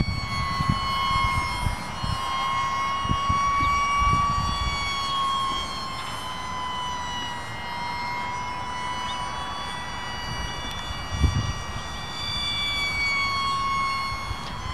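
Radio-controlled model airplane's motor and propeller whining steadily overhead, its pitch drifting slowly up and down as the plane flies. Wind buffets the microphone in low gusts, strongest about eleven seconds in.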